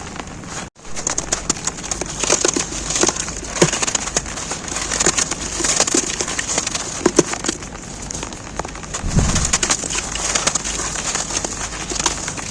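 Rain pattering steadily on an umbrella, over many crisp, crackling crunches of snow being crumbled. A short low sound about nine seconds in.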